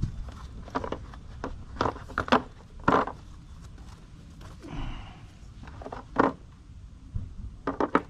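Hand tools being handled and set down: a scatter of separate knocks and clinks, with a short rustle near the middle.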